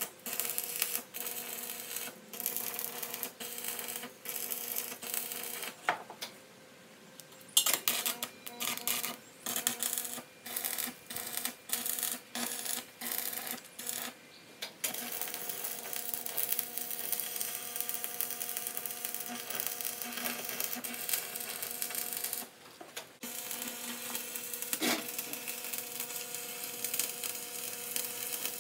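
Semi-automatic (MIG) welder arc crackling as steel floor plate is welded to a truck bed's cross members, at first in many short bursts of stitch welding with brief pauses, then in longer unbroken beads from about halfway through, over a faint steady hum.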